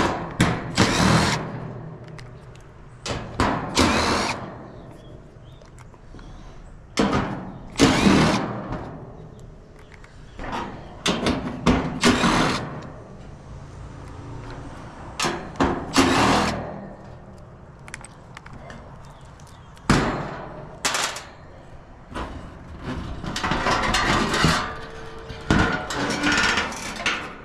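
Hands-on work on a rooftop-style gas pack unit: repeated short bursts of tool and sheet-metal clatter, some with a brief whirr like a power driver, at irregular intervals.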